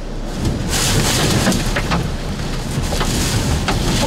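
Strong hurricane wind gusts and heavy rain, the wind buffeting the microphone with a low rumble under the hiss of the rain. A gust strengthens about a second in.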